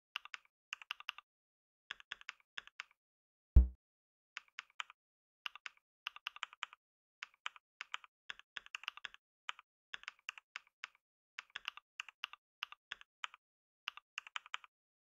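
Computer keyboard typing: short groups of sharp key clicks, a word at a time with brief pauses between. About three and a half seconds in there is a single loud low thump.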